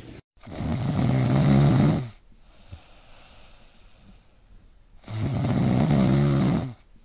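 A sleeping domestic cat snoring: two long, loud snores of about two seconds each, roughly three seconds apart.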